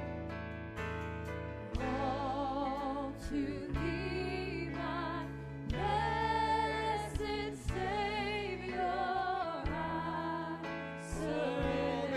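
Live worship band playing a slow gospel-style song with singing, the held sung notes wavering with vibrato over sustained low chords.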